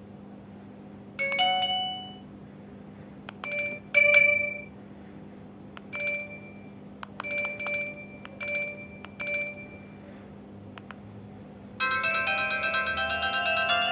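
LG A271 mobile phone: keys clicking as its menu is stepped through, each press followed by short bright beeps, then about twelve seconds in a ringtone starts playing, a fast multi-note melody. A low steady hum sits underneath.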